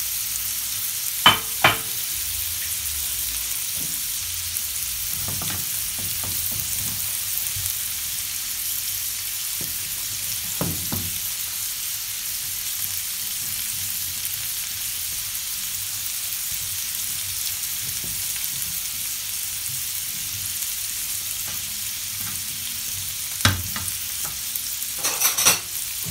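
Couscous and grilled vegetables sizzling in a hot frying pan while being stirred and turned over with a spatula. Two sharp clicks about a second in, and the spatula knocking against the pan several times near the end.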